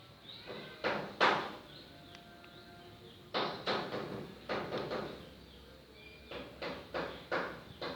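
A series of short handling noises, knocks and scrapes, in three groups: two around a second in, several from about three and a half to five seconds, and several more from about six to eight seconds.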